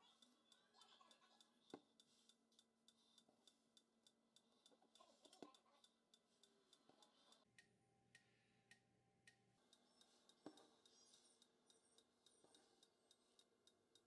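Near silence: faint room tone with light, regular ticking and a few isolated soft clicks.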